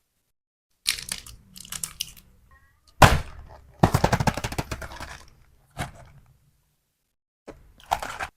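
Close-miked crackling and crinkling of snack packaging being handled and opened, in several short bursts. The longest and loudest is a rapid run of crackles about four seconds in.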